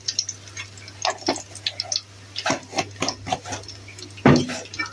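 Scattered light clicks and taps of kitchen utensils and a plastic seasoning bottle being handled around an aluminium wok on a gas stove, with one louder knock about four seconds in, over a low steady hum.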